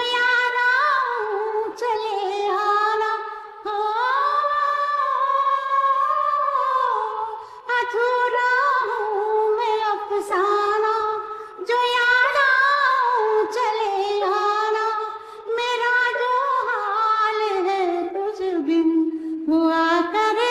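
A woman singing a Hindi film melody alone, her vocal track separated out of the song by an app so the accompaniment is gone. She sings in ornamented, gliding phrases broken by short breaths, with one long held note a few seconds in.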